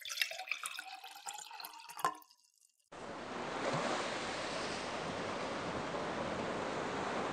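A short bubbling, dripping water sound effect for about two seconds, then after a brief gap a steady wash of ocean surf that begins about three seconds in.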